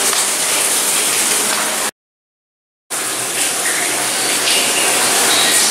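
Steady rushing, water-like background noise with faint traces of voices. It cuts to total silence for about a second, about two seconds in, then resumes.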